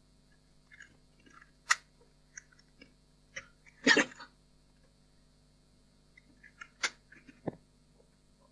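Sharp clicks and small scraping and tapping noises of the opened headphone's plastic housing and parts being handled. The loudest is a short cluster about four seconds in, with single sharp clicks before and after it.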